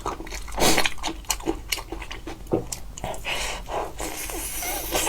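Close-miked chewing and wet lip-smacking of someone eating meat: a quick run of sticky clicks and smacks, with a louder smack about a second in and another about two and a half seconds in.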